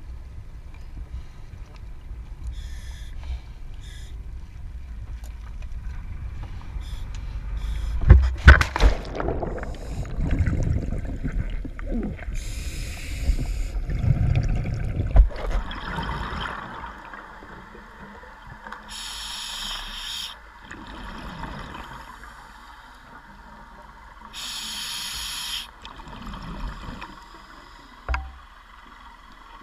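A low rumble on the boat, then a loud splash about eight seconds in as the camera goes into the sea with the diver. Underwater, a scuba diver's regulator breathing follows: bursts of exhaled bubbles, each lasting about a second, come three times, roughly every five or six seconds.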